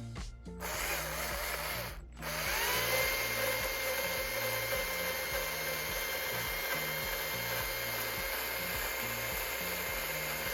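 A power tool runs, cuts out briefly about two seconds in, then spins back up, its pitch climbing, and runs steadily. Background music with a beat plays underneath.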